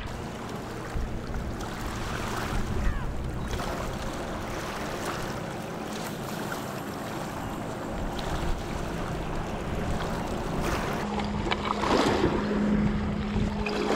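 Ocean surf washing on the shore, with wind buffeting the microphone. A steady low hum joins about eleven seconds in, along with a few clicks and knocks.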